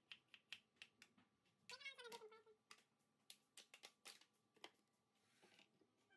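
Near silence: faint scattered clicks and light knocks, with one short, faint pitched call about two seconds in.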